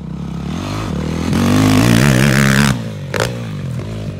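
Dirt bike engine revving hard, its pitch wavering up and down with the throttle. The sound swells, then cuts off suddenly about two and a half seconds in. A brief sharp clatter follows half a second later.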